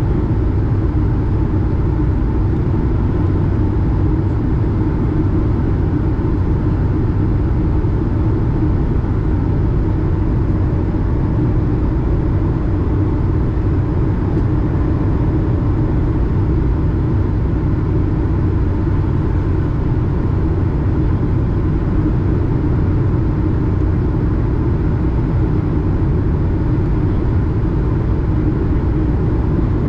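Steady cabin noise of an Airbus A220 on its descent, as heard from a window seat over the wing: the drone of its Pratt & Whitney PW1500G geared turbofans and the rush of air, mostly deep and even, with a faint steady hum in it.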